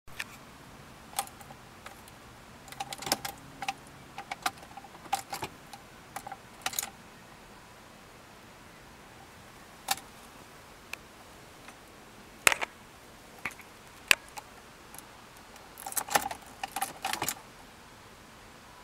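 Sharp clicks and short rattling clusters of clicks from a key and switchgear as a 1996 VW Passat VR6 is tried and fails to start. No engine cranking or running is heard.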